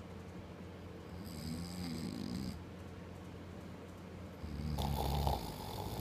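A man snoring in his sleep: two snoring breaths, one starting about a second in and a louder one about four and a half seconds in.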